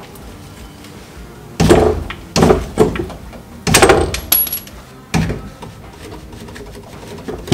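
Metal clanking and knocking, about half a dozen sharp knocks with brief ringing over a few seconds, as a VW Syncro van's transmission is worked down on pull straps onto the ground.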